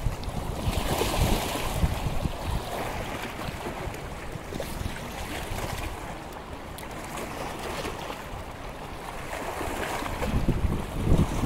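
Wind buffeting the microphone in a steady low rumble, gusting stronger near the end, over choppy lake water lapping.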